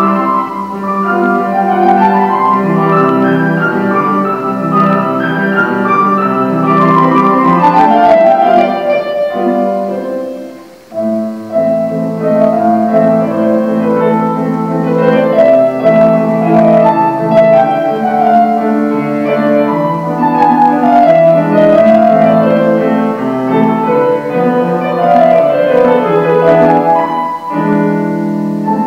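Solo grand piano playing a classical-style piece, melody over chords, with a brief break about ten seconds in before the playing resumes.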